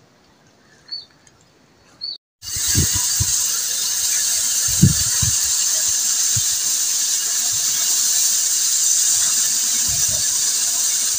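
A pressure cooker of dal hisses steadily and loudly with a high, whistling steam jet from its vent as it lets off pressure after cooking. The hiss starts sharply about two seconds in, with a few dull low knocks beneath it.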